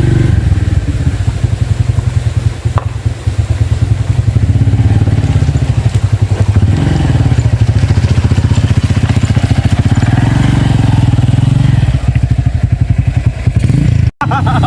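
Motorcycle engine running under load, its pitch rising and falling as the throttle is worked.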